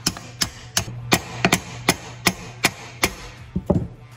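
A small brass hammer tapping a control rod lever arm onto its shaft on a Ford Model A steering column: about a dozen light metal-on-metal strikes, roughly three a second, stopping near the end.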